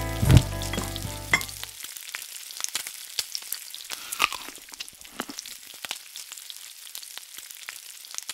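Frying-pan sizzle: irregular crackling and popping, as of hot oil, slowly fading, with one louder burst of pops about four seconds in. Music plays underneath at first and stops about two seconds in.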